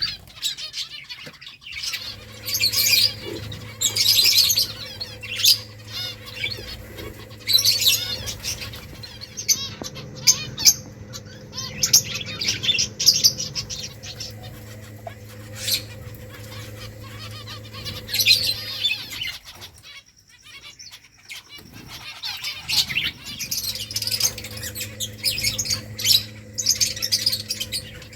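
Finches chirping in quick clusters of short, high notes, with a steady low hum underneath that drops out for a few seconds about two-thirds of the way through.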